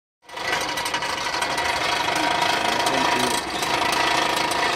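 Coal forge blower running steadily, a whine over air rushing through the burning coals, with scattered small crackles.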